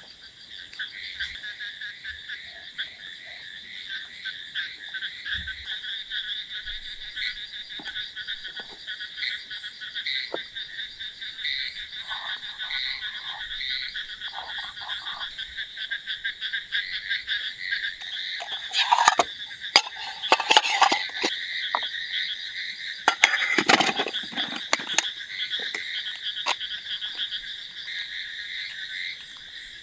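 A steady chorus of frogs croaking in the night, pulsing without a break. It is joined by bursts of close scraping and knocking twice, a little over halfway through and again a few seconds later.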